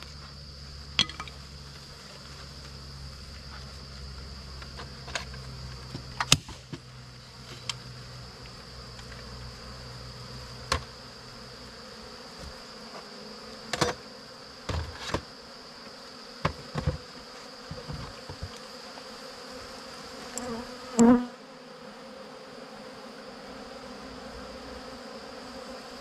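Honey bees buzzing around their hives, agitated after the hives have been closed up for moving. A steady high-pitched hum runs throughout, and there are scattered sharp knocks and taps from the wooden hive boxes being handled.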